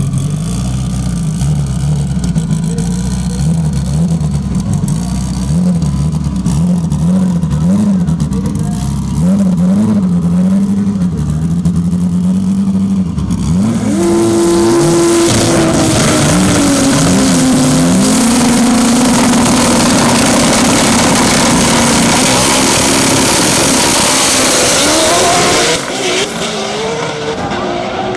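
Stick-shift drag cars, one a Toyota Supra, at the start line. For the first half the engines are blipped and revved up and down. From about halfway they are held loud at a nearly steady high pitch, typical of launch-control rev limiters. Near the end the level drops and the pitch moves again as the cars launch.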